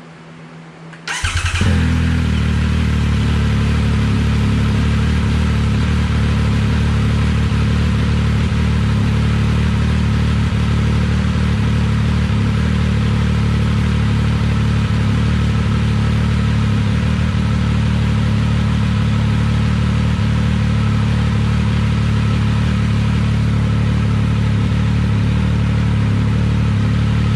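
Triumph Speed Triple 1200 RS's three-cylinder engine firing up about a second in on a warm restart, then idling steadily through an SC Project CRT carbon-fibre muffler.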